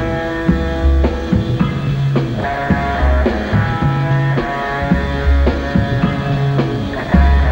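Rock music: sustained guitar chords over a repeating bass line, with regular drum hits.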